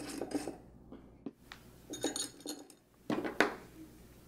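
Small metal screws and a hex key clinking and tapping as screws are set into a metal camera cage's top plate: a few light clicks, then two sharper clicks about three seconds in.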